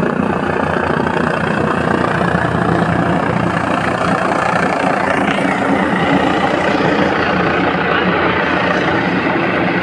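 Helicopter flying in low to land, its rotor and turbine noise steady and loud.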